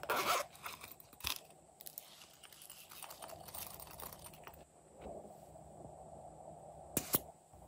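Close-up handling of a silicone pop-it coin purse: a quick rasp of its zipper at the start, a click, then soft rustling and scraping. Near the end two sharp clicks as the lid of a small metal lip balm tin is opened.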